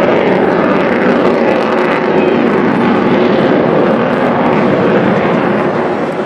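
Avro Vulcan delta-wing bomber flying past, its four Rolls-Royce Olympus turbojets making a loud, steady jet noise.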